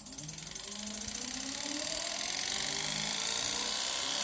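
Treadmill DC motor, run by a PWM speed controller, spinning up from a standstill: a whine and hum that rise slowly and steadily in pitch and loudness.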